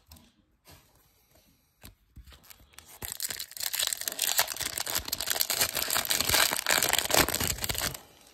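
Foil wrapper of a 1999 Topps Chrome baseball card pack crinkling and tearing as it is ripped open. A dense crackle starts about three seconds in and stops abruptly near the end.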